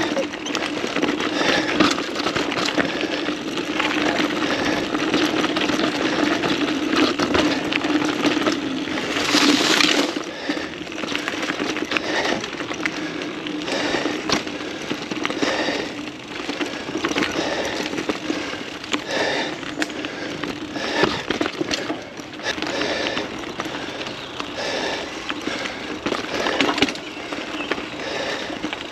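Mountain bike riding a dirt trail: tyres rolling over the ground with a steady low hum and frequent rattles and knocks as the bike bumps over roots and rocks. A brief loud hiss a little under ten seconds in.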